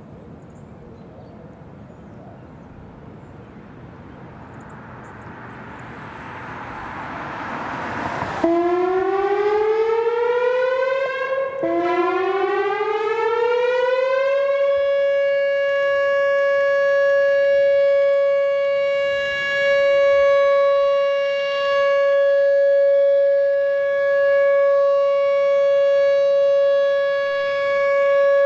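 Whelen WPS 4004 electronic outdoor warning siren starting its alert signal. A rushing noise grows louder for several seconds. The tone then sweeps up in pitch, breaks off once, sweeps up again and holds a loud, steady 560 Hz tone for the rest.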